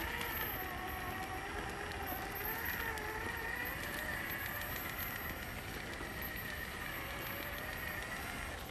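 Stock brushed electric motor and gear drivetrain of a Traxxas TRX-4 1/10 scale RC crawler whining as it crawls over rock, the pitch wavering up and down with the throttle.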